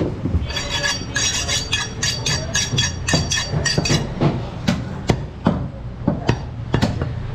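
Butcher's cleaver chopping goat meat and bone: a quick run of strikes with a metallic ring over the first few seconds, then irregular single chops.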